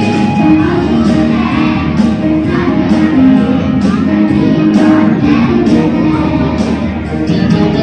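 Music with a steady beat and plucked guitar-like strings, with some singing.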